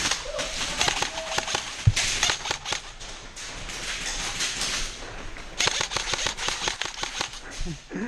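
Airsoft guns firing: rapid runs of sharp clicks over a hiss, in two main stretches, one about two seconds in and one about six seconds in.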